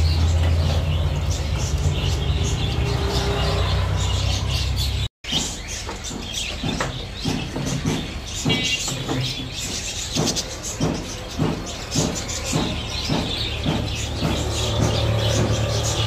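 Caged birds chirping, many short sharp calls, over a steady low hum that fades after the first few seconds and returns near the end. The sound drops out for a moment at about five seconds.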